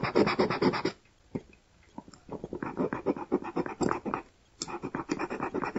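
Fast back-and-forth rubbing strokes, about eight a second, scuffing the metal end cap of an 18650 lithium-ion cell clean so that solder will take. The rubbing stops about a second in, starts again about halfway through, pauses briefly and carries on.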